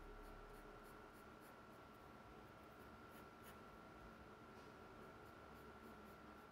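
Faint pencil strokes of a Faber-Castell graphite pencil scratching across drawing paper, short irregular strokes several a second as lines are sketched. A steady faint high-pitched tone runs underneath.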